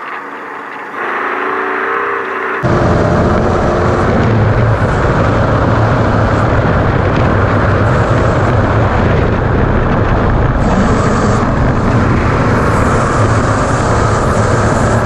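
V8-powered Ford Ranger desert race truck running hard at speed over rough terrain: a loud, dense roar with a deep low rumble. It cuts in suddenly about two and a half seconds in, after a quieter stretch of steady engine drone.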